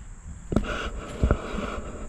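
Power drill motor whining lightly and steadily, with a few knocks, one about half a second in and two close together a little past a second.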